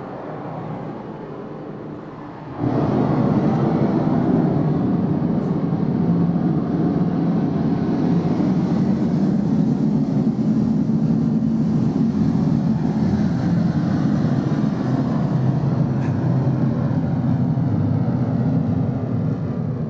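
Recording of a Soyuz rocket launch made about 700 m from the pad, played loud over a hall's speakers: first the hiss of the fuel going through, then about two and a half seconds in a sudden jump to a loud, steady low rumble of the engines that falls away just before the end.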